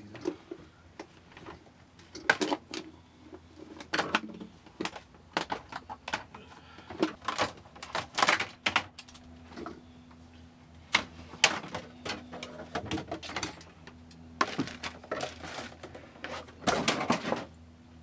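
Irregular cracks, knocks and scrapes as pieces of the old built-in fridge's fiberglass and laminate countertop are pulled and broken away by hand, with busier flurries about eight seconds in and near the end. A faint steady hum runs underneath.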